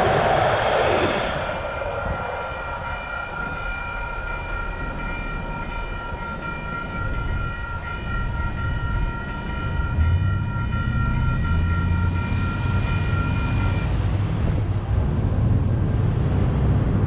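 A passing light rail train's wheel noise fades in the first second or two. A railroad crossing warning bell then rings steadily as the gates rise after the train has cleared, and stops a few seconds before the end. Car engines rumble in the last several seconds as traffic drives across the tracks.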